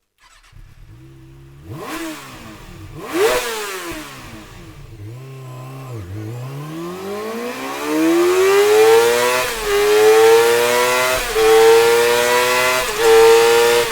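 Kawasaki Ninja ZX-6R 636 inline-four engine idling, blipped twice, then revved in a long steady climb to a high, loud pitch that holds with a few brief dips.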